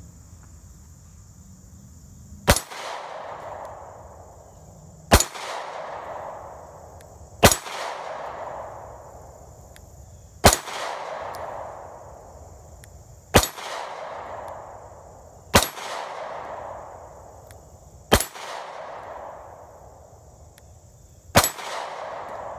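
Beretta Nano subcompact 9mm pistol fired eight times in slow, deliberate succession, one shot every two and a half to three seconds, each shot followed by a long fading echo. Crickets drone steadily underneath.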